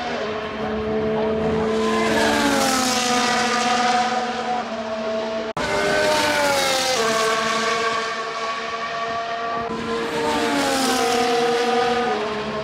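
Formula 1 cars' turbocharged V6 engines running at high revs as they pass at speed, each high engine note dropping in pitch as a car goes by, several times over. The sound breaks off sharply about five and a half seconds in, then carries on.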